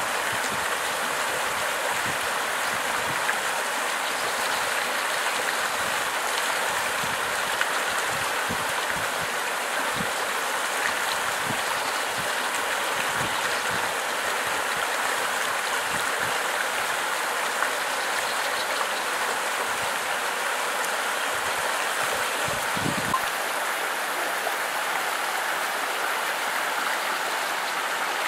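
Creek water running over rocks in a steady, even wash, the creek flowing strongly after a heavy rainfall.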